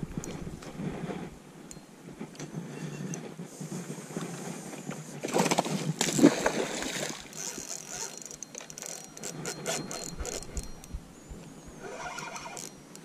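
A fish splashing and thrashing at the water's surface for about a second and a half around the middle, amid scattered light clicks and knocks of rod and reel handling.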